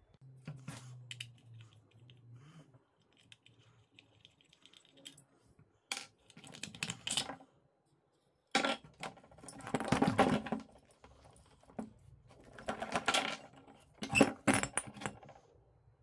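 Hard plastic clicking and clattering in several short bursts as a screwdriver pries the terminal cover off a refrigerator compressor and the cover is handled and set down on a wooden bench.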